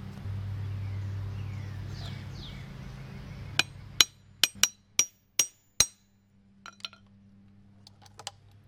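Low steady hum that fades over the first three seconds, then six sharp metallic knocks and clinks in about two seconds from the old Nobles SpeeDry floor vacuum being shoved and handled, its front gasket dragging on the floor. A few faint clicks follow.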